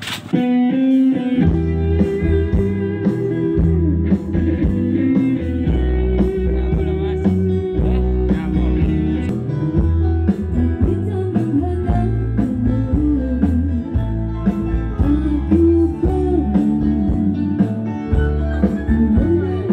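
Music with a guitar melody over a heavy bass beat, played loud through a PA sound system under test.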